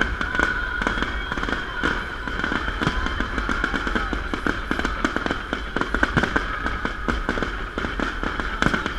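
Festive fireworks salute: a continuous, rapid barrage of bangs and crackling.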